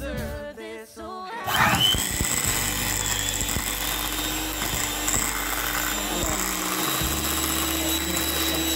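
Background music, then about a second and a half in a small handheld electric whisk starts and runs steadily, whipping shea butter in a small glass jar.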